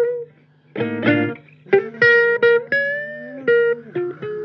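Guitar playing a blues phrase: a short pause, a strummed chord about a second in, then single picked notes, one of them bent up and back down in the middle.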